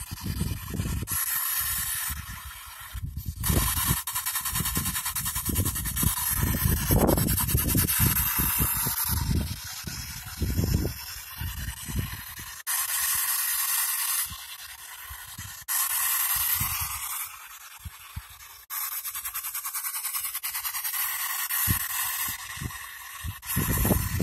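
P-SB7 spirit box sweeping radio frequencies, giving a steady hiss of white-noise static that changes abruptly every second or two as it jumps between channels. Irregular low rumbles and thumps run underneath.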